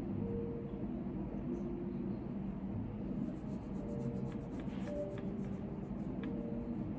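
Computer keyboard typing: a quick run of keystrokes from about three seconds in to just past five seconds, then a couple of single taps, over a steady low hum of room noise.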